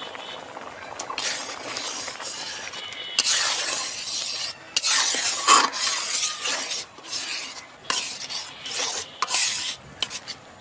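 A metal spatula stirring boiled moong dal in a metal kadai, a series of swishing strokes against the pan, loudest from about three to six and a half seconds in.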